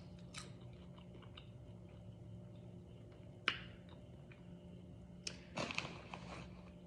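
Faint crunchy chewing of chips in the mouth, with a sharp crack about halfway through and a short run of crunches near the end.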